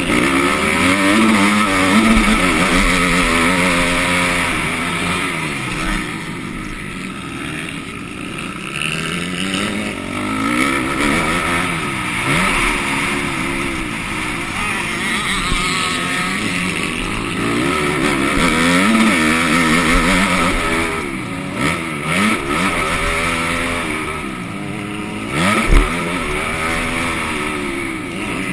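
Motocross bike engine at race pace, its revs climbing and dropping again and again through gear changes and corners. Wind rushes over the microphone throughout, and a sharp thump sounds near the end.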